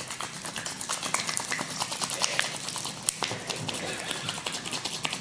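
Sticky homemade slime being kneaded and pulled by hand: a dense, irregular run of small wet clicks and crackles.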